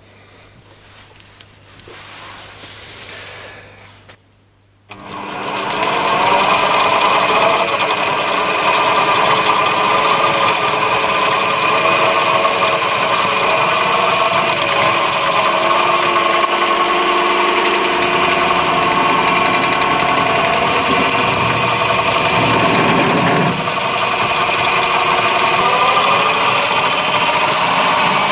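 Mini lathe running with a steady motor and gear whine, spinning a chrome-plated brass doorknob in its chuck while a drill in the tailstock bores into it. Before it starts, about five seconds in, there is quieter handling of the tailstock drill chuck.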